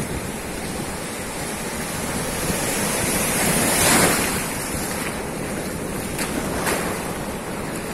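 Ocean surf washing and breaking, a steady rush of water that swells to its loudest about four seconds in.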